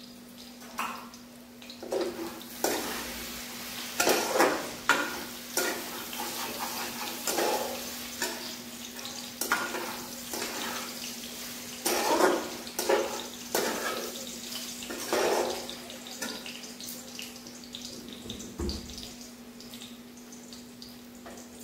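Metal spatula stirring vegetables in a steel pot: a run of irregular scrapes and clanks that thins out after about 16 seconds, over a steady low hum.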